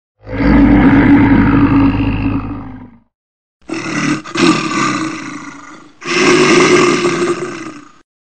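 Bear roaring three times, each roar two to three seconds long, the last two back to back. The roars are cut off into dead silence between them, like an edited sound-effect loop.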